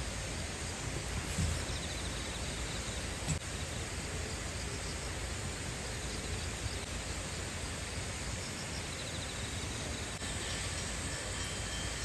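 Outdoor ambience: a steady hiss with faint, high chirping runs a few times, and a single sharp click about three seconds in.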